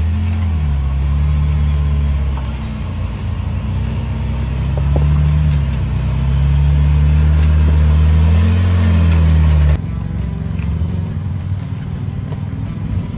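Lifted Jeep Wrangler JK's engine working under load as it crawls over rocks, its pitch rising and falling a few times as the throttle is fed in and let off. The sound drops suddenly about ten seconds in and carries on quieter.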